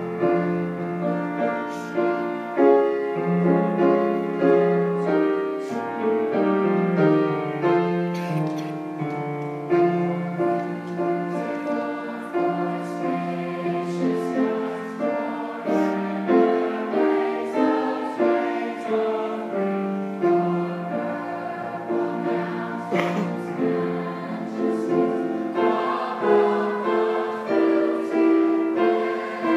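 Seventh-grade school choir singing in several voices, with piano accompaniment, holding long notes that change about every second.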